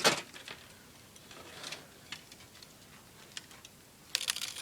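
Scattered clicks and light knocks from hand work on window parts: a sharp one right at the start, a few spaced out after it, and a quick run of clicks about four seconds in.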